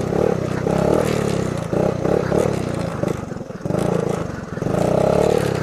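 1979 Honda ATC 110 three-wheeler's small single-cylinder four-stroke engine running under throttle, the engine note rising and falling. It drops off briefly twice around the middle before picking up again.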